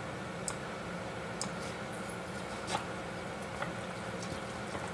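Wooden chopsticks working cold noodles in a plastic takeout tray: a few light clicks and soft squishes, the sharpest click near the middle, over a steady room hum.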